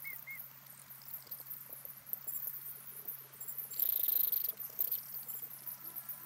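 Pond-side wildlife ambience: a dense, high-pitched chirring chorus, with a louder buzzing burst about four seconds in, over a steady low hum.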